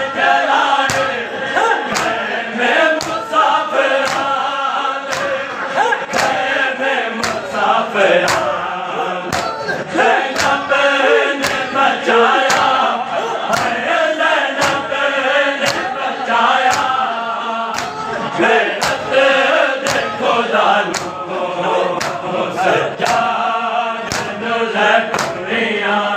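A crowd of men chanting a noha, a mourning lament, in unison. Under the chant, hands strike bare chests in matam in a steady beat, about three strikes every two seconds.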